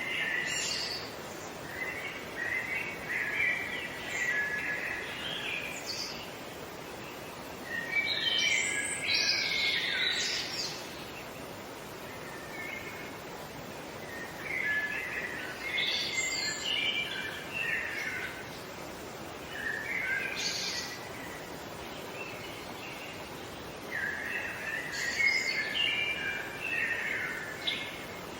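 Songbirds singing: short phrases of quick chirping notes that come back every few seconds, over a steady background hiss.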